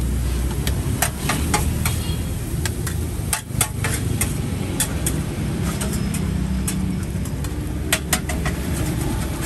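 Street ambience: a steady engine hum of passing traffic, with irregular sharp taps and clinks throughout.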